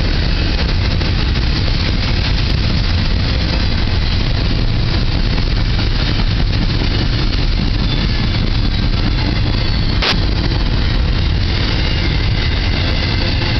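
Double-stack container well cars of a CSX intermodal freight train rolling past, a loud, steady rumble of steel wheels on rail. A single sharp click about ten seconds in.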